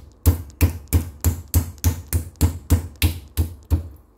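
Wooden meat mallet pounding raw chicken breast on a wooden cutting board: a steady run of dull thuds, about three to four a second, flattening the thick meat so it cooks tender.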